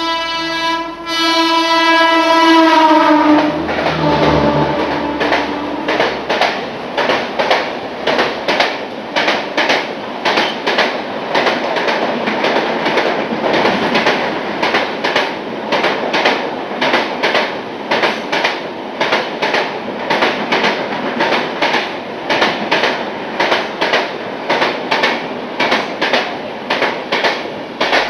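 WAP-4 electric locomotive's horn blowing as it passes, its pitch dropping as it goes by, followed by a passenger train's wheels clattering over the rail joints in a steady rhythm of about two beats a second.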